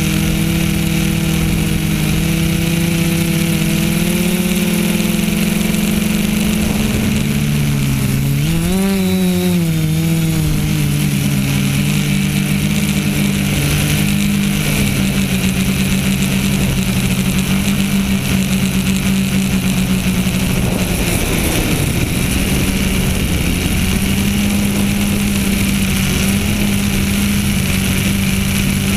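Brushless motors and propellers of a TBS Discovery quadcopter in flight, heard close up from on board as a loud, steady whine over a hiss of rushing air. The pitch shifts as the motor speeds change, with a marked dip and rise about a third of the way in and another wobble about two-thirds through.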